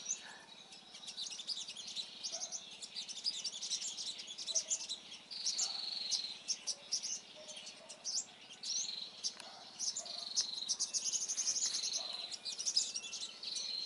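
Sunbirds calling: bursts of rapid high-pitched chips and short trills repeat over and over, with some held thin notes between them.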